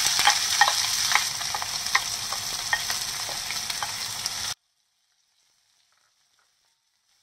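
Chopped onions sizzling as they are scraped from a bowl into hot oil, with sharp crackles and the scrape and tap of a wooden spatula. The sizzle cuts off abruptly about four and a half seconds in, leaving near silence.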